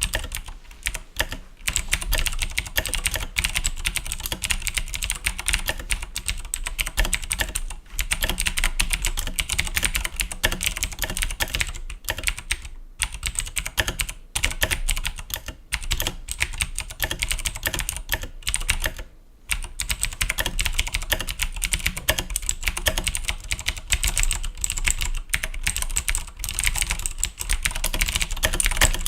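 Fast, continuous typing on a Razer BlackWidow Ultimate mechanical keyboard with clicky Cherry MX Blue switches: a dense run of sharp key clicks, broken by a few short pauses.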